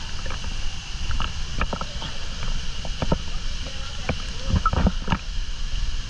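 Water splashing and lapping right at a handheld action camera held just above a pool, over a steady low rumble, with a series of short sharp knocks, the strongest just before the end.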